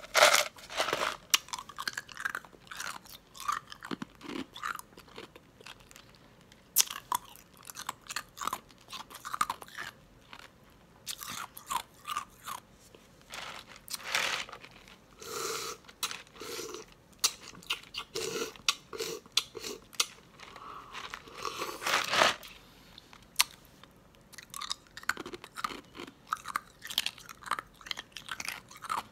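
Ice being bitten and chewed close to the microphone: a loud crunching bite at the very start, then irregular crunches and grinding chews with short pauses between, swelling again to a dense loud crunch a little past the middle.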